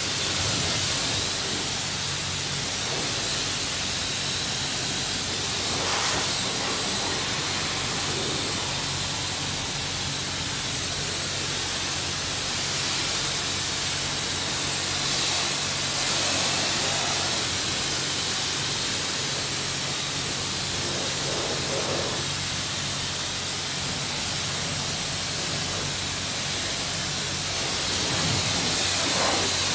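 Self-serve car wash high-pressure spray wand hissing steadily as its water jet strikes a car's body and windows, with a steady low hum underneath.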